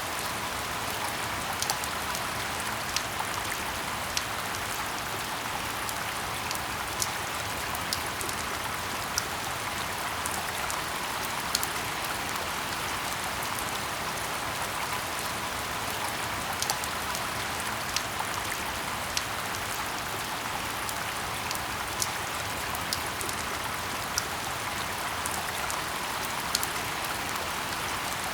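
Steady rain falling in a forest: an even, constant hiss with scattered sharp ticks of individual drops landing close by.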